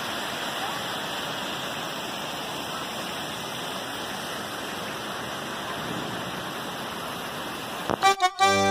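Steady rushing splash of a large multi-jet fountain's water falling into its basin, an even hiss that holds its level. Accordion music cuts in just before the end.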